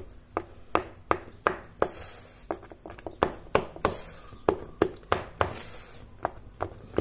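A fork pricking focaccia dough in a metal baking pan: a steady run of sharp taps, about three a second, as the tines go through the dough.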